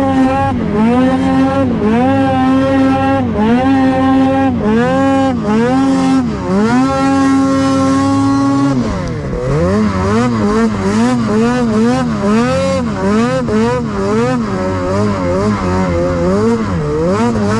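Mountain snowmobile's two-stroke engine revving up and down over and over as the throttle is worked through deep powder. About nine seconds in the revs drop and it carries on at a slightly lower pitch, still rising and falling.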